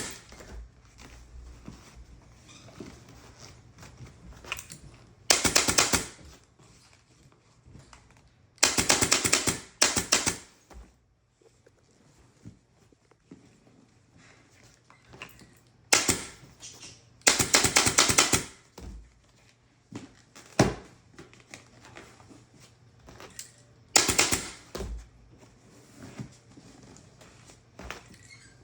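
Upholstery staple gun firing staples in quick runs, in about six bursts with pauses between.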